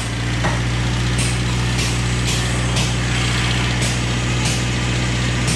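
A steady low machine drone runs throughout, with short sharp knocks about every half second.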